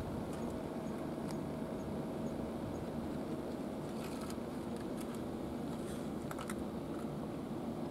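Steady low background rumble, with a few faint ticks about halfway through and again near the end.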